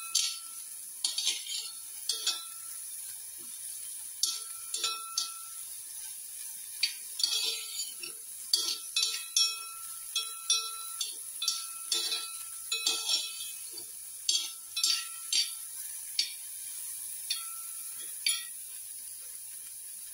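A steel spoon stirring chopped carrots and beans in a metal uruli, scraping and clinking against the pan in irregular bursts, with the pan ringing briefly after the sharper strikes.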